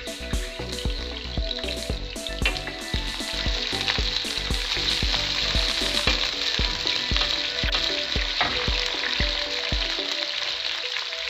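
Sliced onions sizzling in hot oil in a non-stick frying pan, stirred with a wooden spatula; the sizzle swells about three seconds in. Background music with a steady beat runs under it, and the beat stops near the end.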